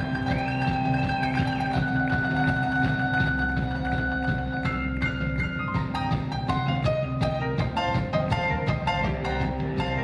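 Live rock band with a keyboard solo: the electric keyboard holds long notes at first, then from about five seconds in plays quick runs of separate notes, with the band playing underneath.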